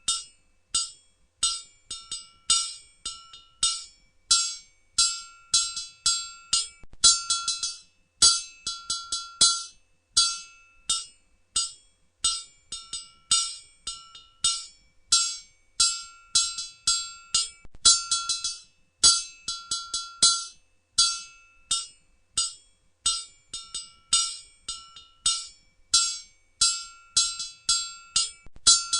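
Blacksmith's hammer striking metal on an anvil: a long run of sharp metallic clangs, roughly two a second in uneven groups, each leaving a short bright ring.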